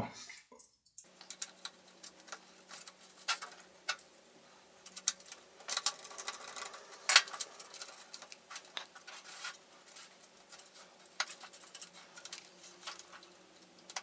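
Small irregular clicks and taps of hands working inside an opened laptop: seating an mSATA SSD in its slot, fitting its retaining screw and pressing the Wi-Fi antenna leads onto their connectors. A faint steady hum runs underneath.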